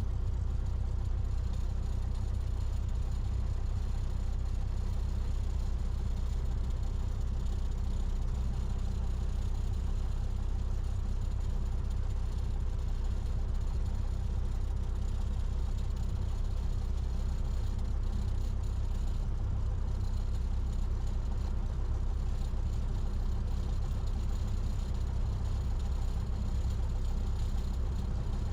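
Cessna 172's piston engine and propeller, a steady low drone with no change in power.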